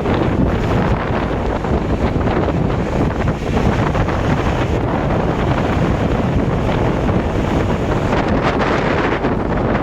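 Strong storm wind buffeting the microphone, a loud steady rush of noise.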